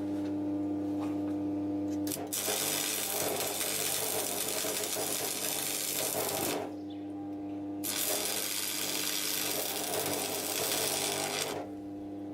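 Electric arc welder tack-welding a steel billet stack: two runs of steady crackling arc sizzle, each about four seconds long, with a short break between them, over a constant low hum.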